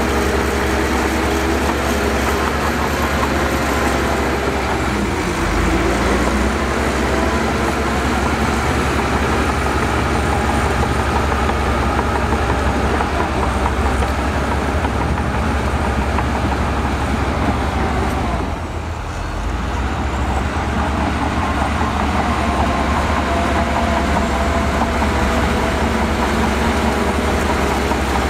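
Heavy diesel earthmoving machinery running steadily under work. The engine note dips briefly about two-thirds of the way through, then comes back up.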